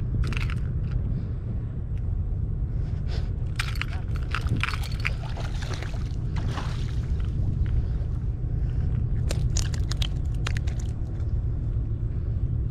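A small fish hooked on a hand line splashing at the water surface as the line is hauled up a jetty wall, heard as scattered splashes and knocks that come in two clusters, near the middle and again about three quarters in, over a steady low rumble.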